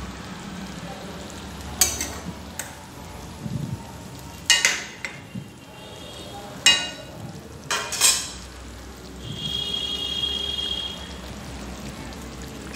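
Pabda fish curry cooking in a pan, with a metal spatula clicking and clinking against the pan several times over a steady low frying noise.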